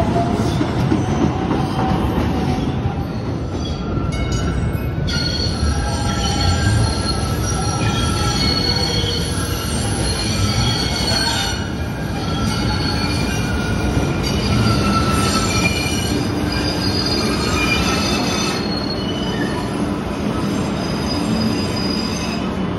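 MBTA Green Line light rail cars running through an underground station, their steel wheels squealing on the rails with several high-pitched tones that waver and shift over a steady rumble.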